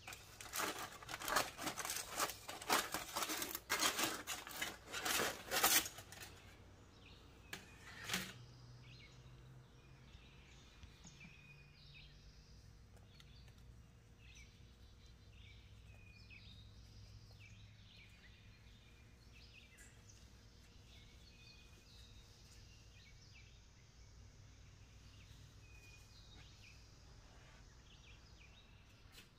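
Aluminium foil crinkling and crackling as it is pulled off a covered pan, for about six seconds, then one more short crackle.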